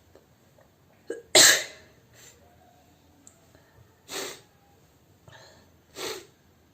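A woman sneezes hard once, about a second and a half in, the sneeze brought on by tickling her nose with a handkerchief. Two shorter, quieter bursts of breath through the nose follow, near the middle and near the end.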